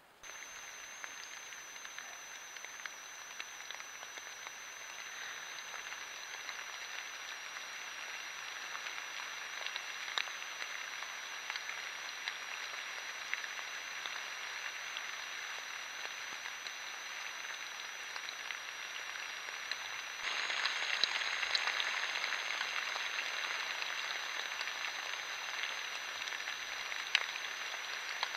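Rain pattering steadily on the forest floor and branches: a dense hiss of tiny drop clicks picked up by a trail camera's microphone, with a faint steady high whine under it. It gets suddenly louder about twenty seconds in.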